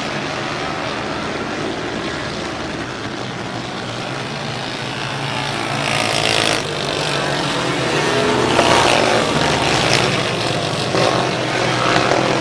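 A pack of small open-wheel dirt-track race cars running flat out around the oval, their engines a continuous howl. It grows louder as cars pass close, first about six seconds in and again around nine seconds, with the engine pitch bending as they go by.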